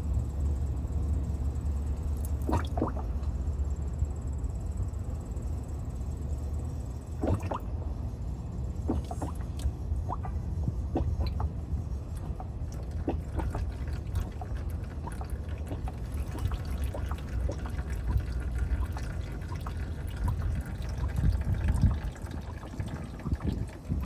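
Old engine oil draining from a 2012 Toyota Tacoma's oil pan in a steady pouring stream into a drain pan, with a few light clicks.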